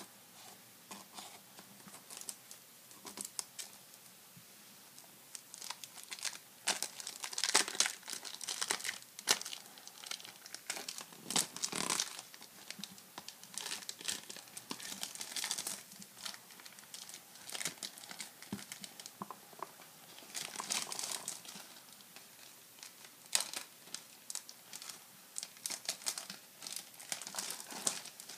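Cellophane shrink-wrap on a cardboard trading-card box crinkling and tearing as it is slit and peeled off by hand, in irregular crackly bursts that start soft and grow louder about six seconds in.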